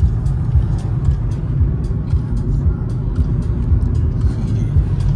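Road noise heard from inside the cabin of a moving car: a steady low rumble of tyres and wind, with faint light ticks now and then.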